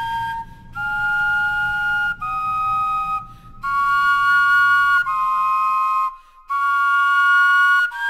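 Flutes carved from carrots playing a slow melody of about six held notes, each about a second long with brief breaks between them, mostly two notes sounding together in harmony.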